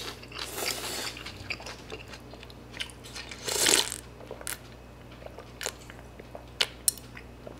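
Close-up eating sounds: rice noodles slurped from a soup bowl, with chewing and small wet mouth clicks. A louder slurp comes about three and a half seconds in.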